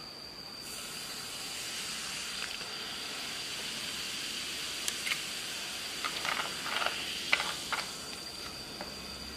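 Coca-Cola poured from a plastic bottle into a ceramic mug, fizzing with a steady hiss as the foam rises. A few small clicks and pops come in the last few seconds as the mug fills.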